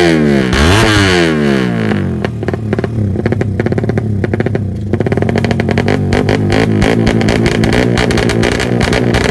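Tuned Suzuki Satria FU motorcycle engine, bored to 200cc and fuel-injected, revved in quick blips, its pitch rising and falling twice in the first two seconds. It then settles to a steady, choppy running note.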